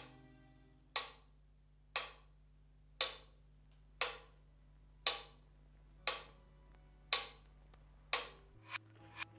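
Mechanical pendulum metronome ticking about once a second, the ticks quickening near the end. Under it runs a low steady drone that drops in pitch shortly before the end.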